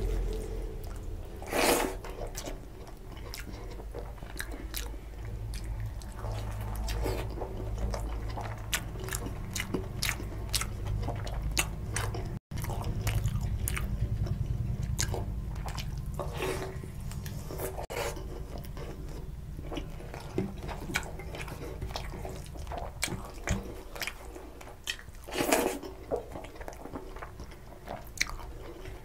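Close-miked chewing and biting of chicken curry and rice eaten by hand: wet mouth smacks and clicks throughout, with a louder bite about two seconds in and another near the end.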